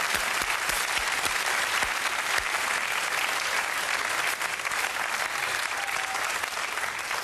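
Studio audience applauding, a steady wash of clapping.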